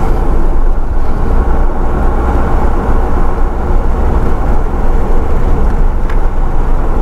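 Steady rumble and rush of a car driving at speed on an open highway: tyre, engine and wind noise, heard from a camera at the vehicle's side window.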